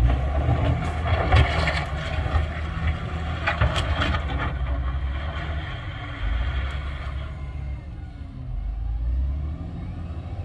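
Heavy diesel earthmoving machinery running with a deep engine rumble, with rough clattering noise over the first four seconds that then settles to a steadier rumble.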